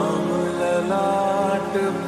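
Background music: a melodic line with gliding notes over sustained chords.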